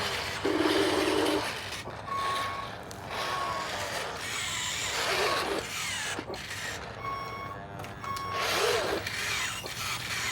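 Reversing-alarm beeps from an RC construction machine's sound module: a steady single-pitch beep sounds four times, in two pairs, with a lower buzzing tone near the start. The whir of small electric motors and gears runs between the beeps.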